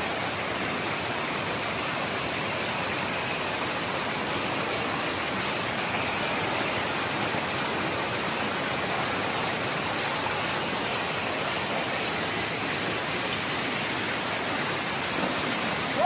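Shallow water pouring over a tank's overflow weir and rushing across the spillway in white water, a steady unbroken rush.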